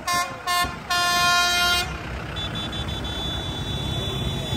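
Tractor horn honking: two short toots, then a longer blast of about a second, over the low running of tractor engines passing close by.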